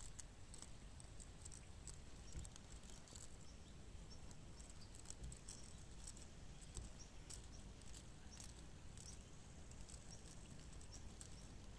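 Near silence: faint outdoor ambience, a low steady rumble with scattered soft, irregular ticks.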